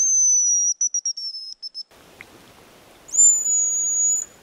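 A hazel grouse decoy whistle blown twice. Each call is a long, very high, thin note that breaks into a few short notes at the end. The first call falls slightly in pitch and ends about two seconds in; the second, a little higher and steadier, starts about three seconds in.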